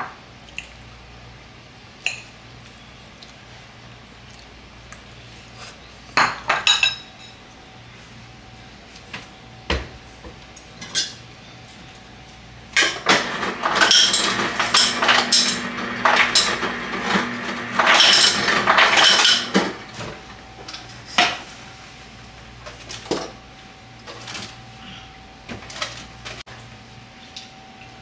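Dishes and cutlery clinking and knocking now and then, with a dense run of clattering for several seconds in the middle.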